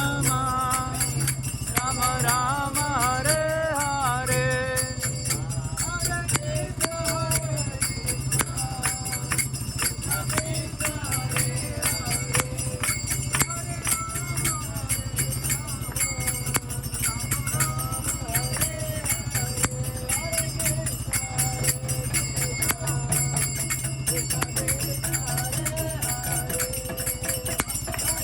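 Devotional kirtan music: a voice singing a melody over jingling hand cymbals that keep a fast, steady beat.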